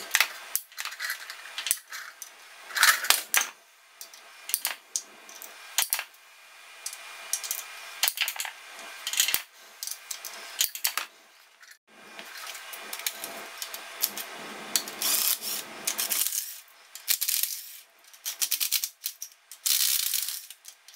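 Hand ratchet clicking in short runs, with metal clinks of the socket, tools and bolts, as fasteners are worked loose on a Borg-Warner T56 transmission case.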